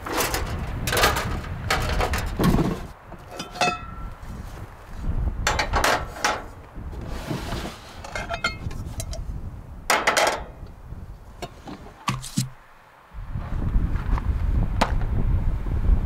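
Camp kitchen gear being handled at the back of a Jeep: knocks and rattles of a slide-out kitchen drawer, a folding propane camp stove and a cast iron skillet, with a couple of short ringing metal clinks. Low wind rumble on the microphone, stronger near the end.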